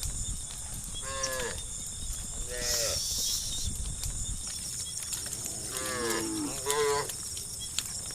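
Cattle in a herd mooing: about four moos, the last two coming close together.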